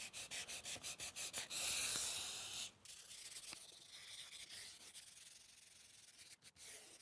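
Light hand-sanding of a painted, clear-coated cabinet door with 320-grit sandpaper to knock down dust nibs: quick short strokes at about five a second, then a longer steady scrub, then fainter rubbing as a hand sweeps over the surface.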